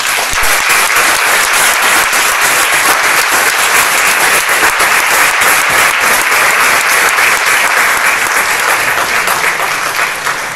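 Audience applauding, a dense sustained round of clapping that begins suddenly and thins out near the end.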